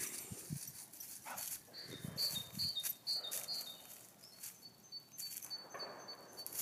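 A German shorthaired pointer moving about, its paws scuffling and thumping softly in short irregular bursts. A faint high chirping repeats throughout.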